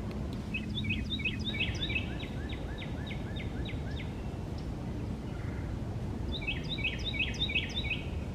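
A songbird singing two phrases of quick repeated chirping notes, a longer one starting about half a second in and a shorter one near the end, over a steady low background rumble.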